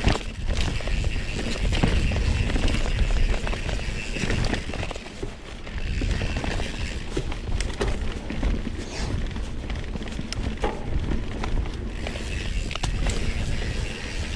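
Mountain bike rolling fast along a dirt forest trail: a steady wind rumble on the microphone, with tyre noise and the bike's chain and frame rattling and clicking over bumps.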